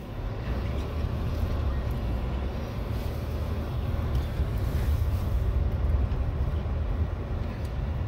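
Car driving, heard from inside the cabin: a steady low rumble of engine and tyre noise.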